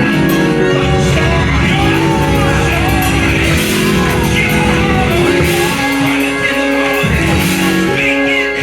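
Live church band music with guitar and sustained bass and keyboard notes, and voices singing over it.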